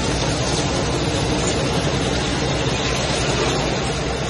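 Metal-cutting machine for making nuts running steadily: a constant mechanical noise over a steady hum.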